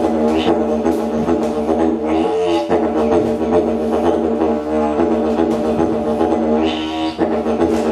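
Didgeridoo playing a continuous low drone, its overtones shifting in waves as the player changes mouth shape, with a brief break about two and a half seconds in.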